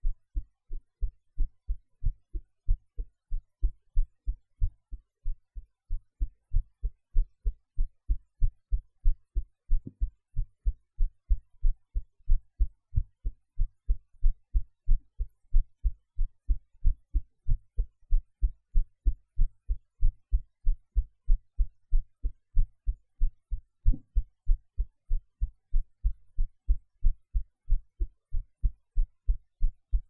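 A human heartbeat recorded close to the chest: a steady rhythm of low paired lub-dub thuds, with background noise edited out.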